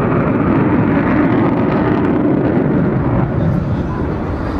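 Avro Vulcan XH558's four Rolls-Royce Olympus turbojets running in a flying display, a loud, steady jet roar from the aircraft overhead, easing off a little near the end as it draws away.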